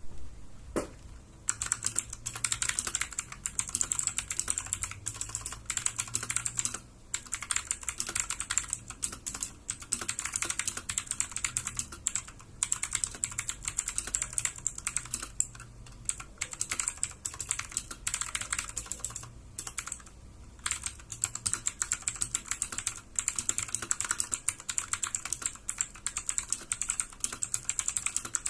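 Fast continuous typing on a Fantech MK871 mechanical keyboard with clicky Outemu Blue switches: a dense rattle of sharp, high clicks, broken by a few short pauses.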